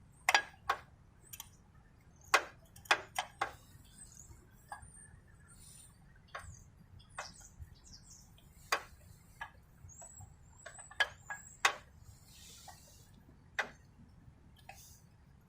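Sharp, irregular metallic clicks and taps of hand tools and small engine parts being handled while a motorcycle's crankcase cover is worked off.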